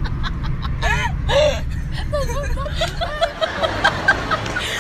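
Siberian huskies whining and yowling in short rising-and-falling cries, over a steady low rumble.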